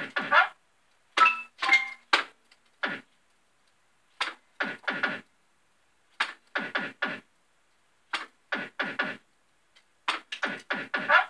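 Bell-Fruit Games Family Guy fruit machine playing game after game: quick groups of clunks as the reels stop, with short electronic beeps, and a rising electronic tone at the start and again near the end.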